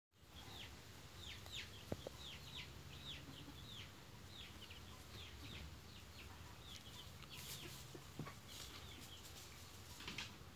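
Chickens calling faintly: a steady run of short, high peeps that fall in pitch, like the peeping of young chicks, with a couple of soft knocks.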